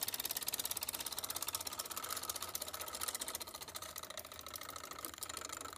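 Homemade magnetic pulse motor running on one coil, its switching contacts clicking in a rapid, even chatter as the electromagnet is pulsed. The clicking grows slightly softer toward the end.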